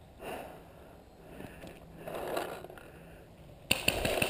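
Footsteps and rustling as a paintball player moves over the forest floor, then near the end a sudden run of sharp cracks from paintball shots.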